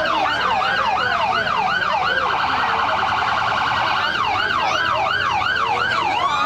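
Police car's electronic siren on its yelp tone, rising and falling about twice a second. A couple of seconds in it switches to a much faster pulsing warble for about two seconds, then returns to the yelp.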